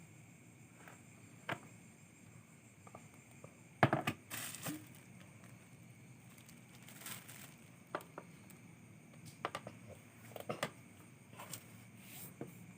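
Irregular crackling, rustling and sharp clicks at close range, the loudest cluster about four seconds in and smaller ones scattered through the rest.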